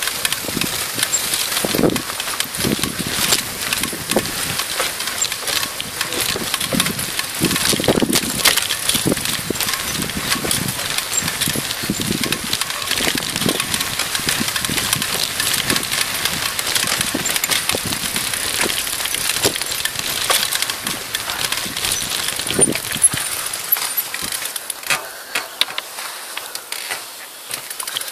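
Mountain bike riding over a rough dirt trail, picked up by a handlebar-mounted camera: continuous rattling and clicking from the bike and the mount over bumps, with tyre noise and low knocks. The low knocks thin out in the last few seconds.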